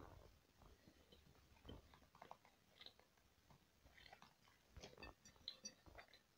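Faint soft clicks and nibbling of a budgerigar pecking at bread crumbs on a plate, more frequent in the second half.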